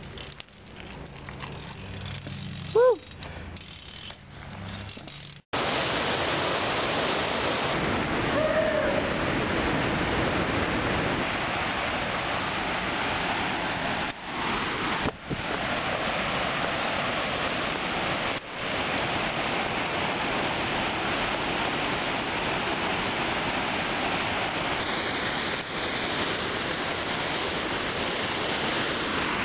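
A brief sharp squeak about three seconds in, then a sudden switch to a loud, steady rush of flowing water that runs on with a few short dips.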